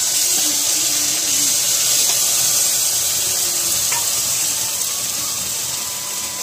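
Ground masala paste sizzling in hot oil in a kadhai: a steady, loud frying hiss.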